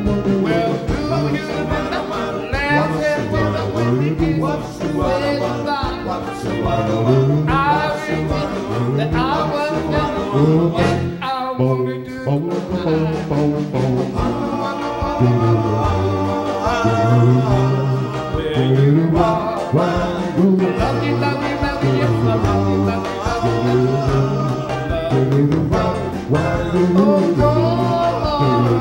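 Live doo-wop vocal group and backing band playing a 1950s ballad, in a stretch without lyrics: a melodic lead with vibrato over the band's steady bass and group harmonies.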